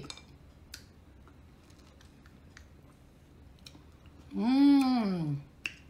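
Faint mouth clicks from sucking and chewing a lemon wedge, then, about four and a half seconds in, a woman's loud, drawn-out wordless exclamation, about a second long, its pitch rising then falling.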